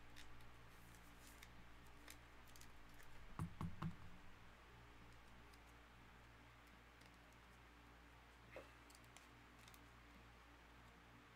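Mostly near silence, with faint clicks and taps of a trading card being worked into a rigid plastic top loader. Three quick soft knocks come about three and a half seconds in.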